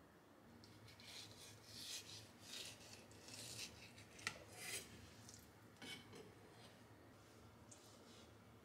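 Kitchen knife blade scraping along a wooden cutting board under a raw salmon fillet as the skin is cut away: a series of soft rasping strokes with one sharp tap about halfway through, then only faint sound near the end.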